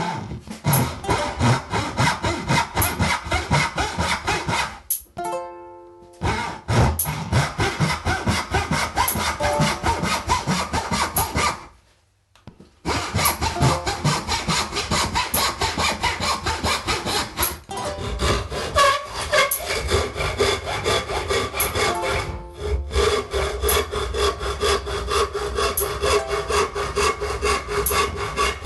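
Hand saw cutting pallet wood in quick, even strokes, broken by short pauses about five, twelve and twenty-two seconds in.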